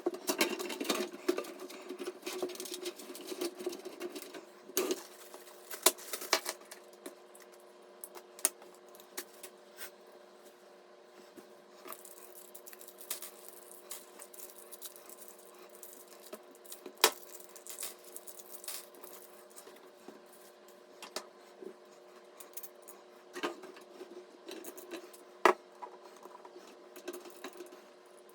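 Scattered light clicks, taps and small knocks of computer hardware being handled and fitted together, busiest in the first few seconds and again near the end, over a faint steady hum.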